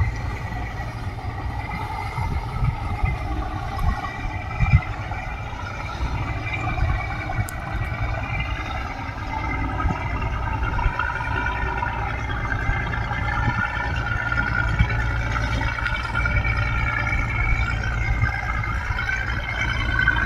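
Motorboat engines running steadily, with a low rumble underneath.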